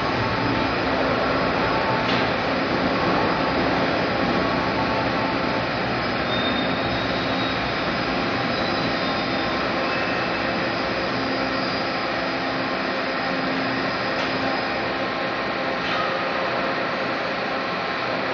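Steady roar of machinery on a steel pipe plant floor, with a few faint clanks.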